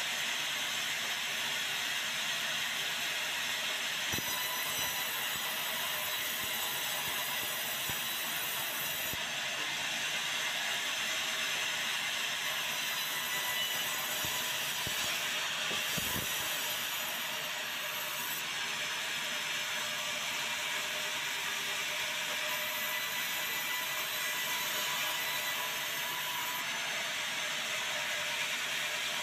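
Sawmill saw cutting white meranti timber into boards: a steady high sawing noise, with a few short knocks in the middle.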